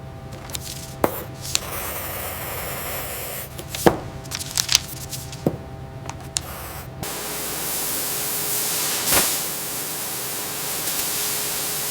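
Sharp clicks and knocks of tools on metal over a low steady hum, then a steady spraying hiss that starts about seven seconds in.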